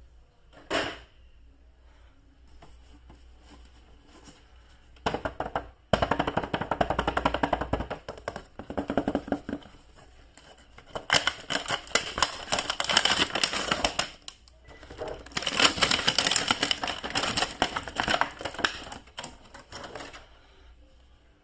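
Plastic toy packaging crackling and rustling as it is handled and opened, in three long runs of dense crackling with short pauses between, and one brief rustle near the start.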